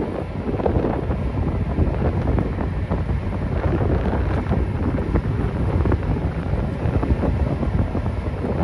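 Wind buffeting the microphone, with a passing suction dredger's engine running underneath.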